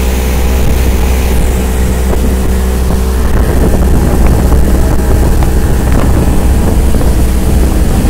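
Motorboat engine running steadily, heard from on board, with wind on the microphone. About three seconds in it grows slightly louder and rougher.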